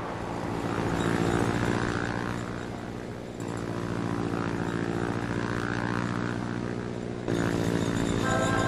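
A small tractor's engine drones steadily in flight. It swells about a second in, dips about three seconds in, then runs on.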